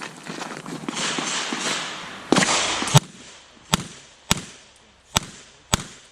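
A string of six handgun shots at a shooting stage. They begin about two and a half seconds in and come unevenly, roughly half a second to a second apart, each a sharp crack with a short echo.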